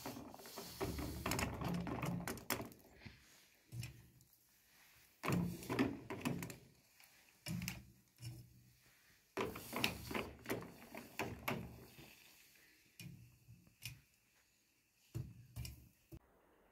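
Metal tongs clattering and scraping in a metal stove's fire, in irregular bursts, with hot pieces dropped hissing into a bowl of water.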